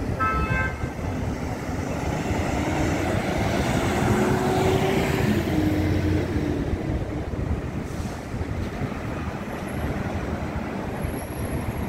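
Downtown street traffic, a steady rumble of engines and tyres, with a city bus passing close by, its engine and tyres swelling to a peak about five seconds in and then fading. A brief high-pitched squeal sounds right at the start.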